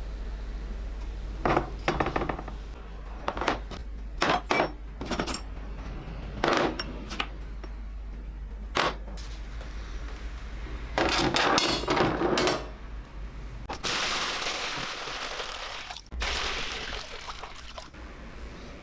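Small metal parts clinking and clattering as they are handled and set down on a hard surface, a dozen or so separate sharp clinks followed by a denser clatter. A steady hiss follows about two-thirds of the way through.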